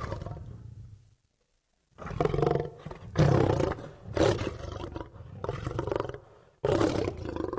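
Dinosaur roar sound effects for an allosaurus: one short roar, about a second of silence, then a string of loud roars and growls in quick succession.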